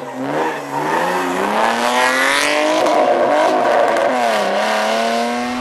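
BMW 3 Series (E36) rally car's engine revving hard as it accelerates past through the corner. Its pitch climbs steadily, dips briefly about four and a half seconds in, then climbs again.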